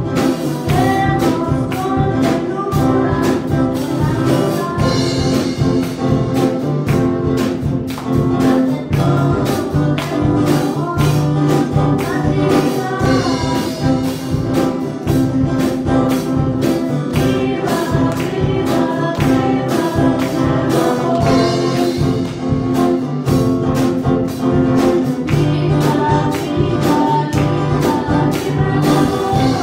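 A girl singing a Spanish Christian song into a microphone over instrumental accompaniment with a steady beat.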